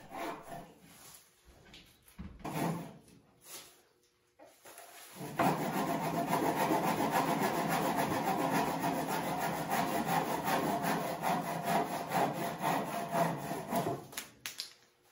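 Hand saw cutting across the end of a white oak bench leg: a few light, hesitant strokes at first, then from about five seconds in a steady run of quick sawing strokes that stops near the end.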